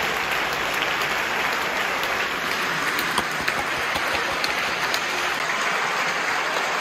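Concert audience applauding, a dense, steady clapping from a large crowd.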